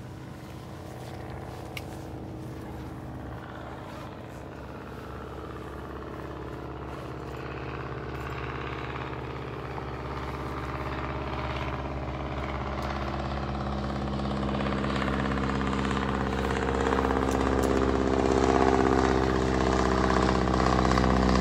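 An engine running at a steady pitch, growing steadily louder through the whole stretch.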